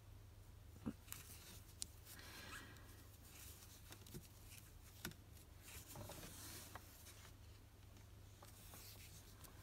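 Faint handling sounds of crocheting: yarn rubbing and a few soft clicks from a metal crochet hook, the sharpest about a second in.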